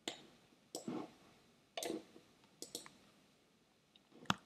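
Faint clicking of a computer mouse and keyboard being worked in short, irregular groups, about five in a few seconds, with the sharpest click near the end.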